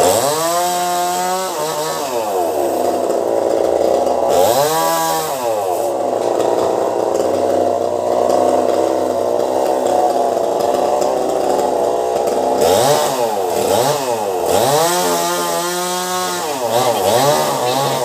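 Chainsaw engine running and cutting into a tree trunk. It is revved up and back down several times, with a steadier stretch at speed in the middle.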